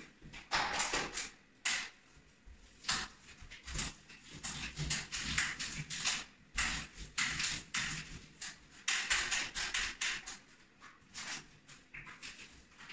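Facade roller on a telescopic pole rolling joint compound over taped drywall ceiling joints, the second coat over the tape: a run of short noisy back-and-forth strokes with brief pauses between them.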